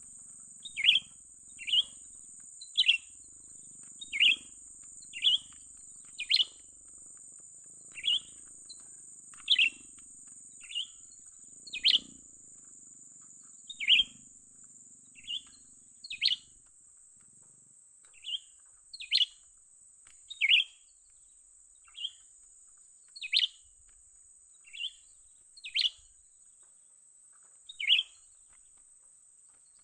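Cucak ranting call: a short, sharp single note repeated about every one to two seconds. A steady high-pitched insect buzz runs beneath it.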